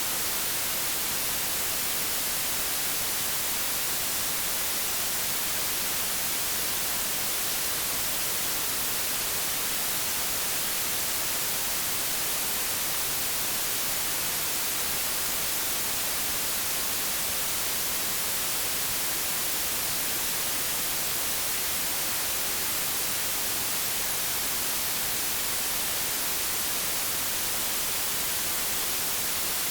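Generated white noise at −20 dB: a steady, even hiss with no change in level.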